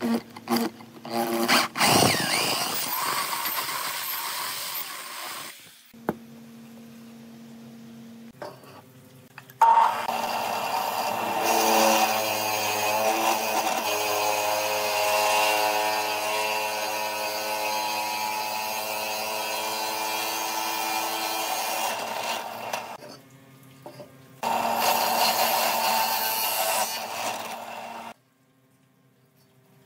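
Electric drill with a Forstner bit boring into a thick wooden disc, in several runs with short pauses between them; the longest run, through the middle, holds a steady motor whine under the cutting noise. It stops shortly before the end.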